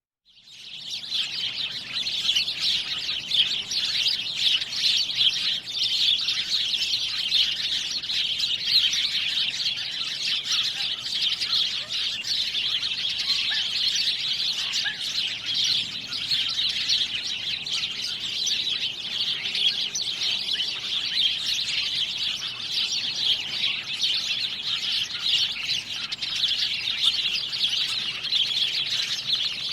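Birds chirping and tweeting continuously in a dense, high-pitched chorus, fading in over the first second.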